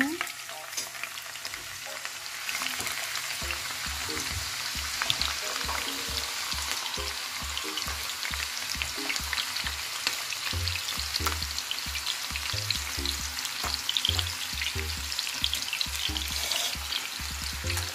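Sliced onions sizzling and crackling in hot ghee (clarified butter) in a frying pan, frying for a tadka. The sizzle builds about two seconds in, then keeps up a steady crackle.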